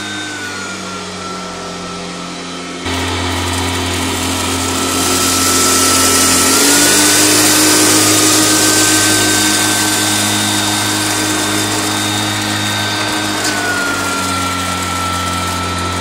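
Hoover Turbopower 2 U2464 upright vacuum cleaner running on carpet: a steady motor whine over a rush of air. About three seconds in it gets louder and deeper. The whine rises a little in pitch about halfway through and drops back near the end.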